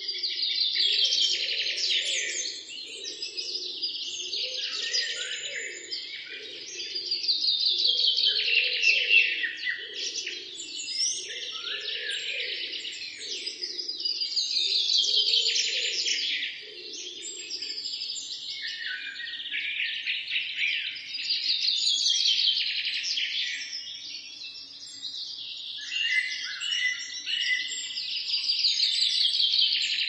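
Small birds chirping and twittering in busy, repeated phrases every few seconds, many trilling downward in pitch. A fainter lower warble runs underneath and fades out about halfway through.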